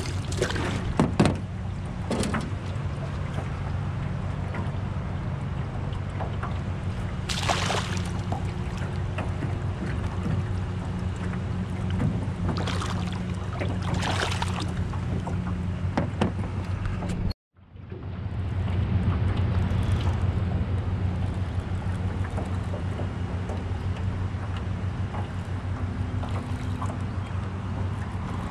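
Striped bass splashing at the surface beside a boat while held in fish grips: a cluster of splashes at the start, then single splashes now and then, over a steady low hum.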